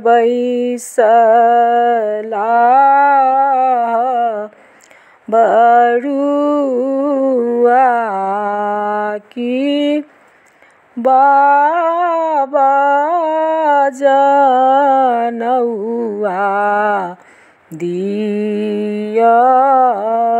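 A woman singing a Maithili upanayan (sacred-thread ceremony) song solo and unaccompanied, in phrases of a few seconds with short pauses between them. Her throat is still recovering from an infection, which she says keeps her from singing as well as usual.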